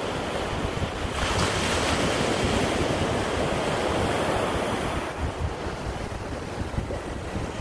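Small ocean surf breaking and washing up the beach, with wind buffeting the microphone. The wash swells up about a second in and eases off about five seconds in.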